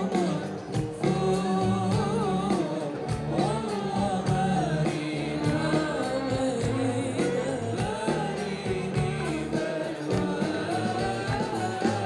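A woman singing an Arabic song live, with instrumental accompaniment, amplified through a stage sound system.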